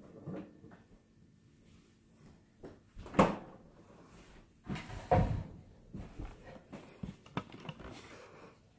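Household knocks and thumps, the loudest about three seconds in and again about five seconds in, with lighter clicks and knocks after them as someone moves about and picks up a plastic cup.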